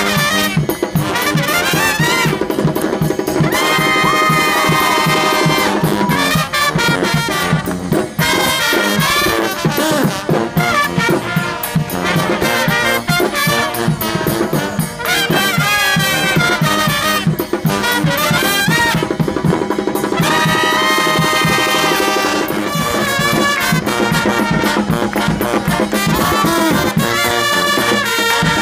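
Street brass band playing live: trumpets and trombones over a drum beat, with two long held chords, one a few seconds in and one about two-thirds through.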